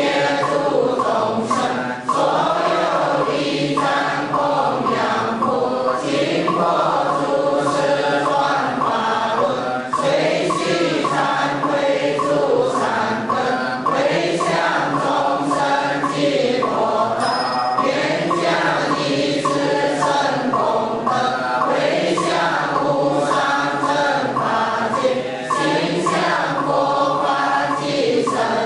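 A congregation chanting Buddhist liturgy together in unison, many voices on a slow, continuous melodic line.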